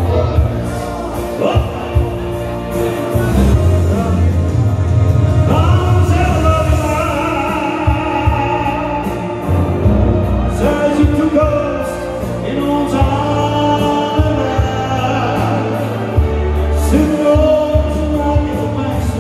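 Music with a sung lead vocal over bass and drums, playing without a break.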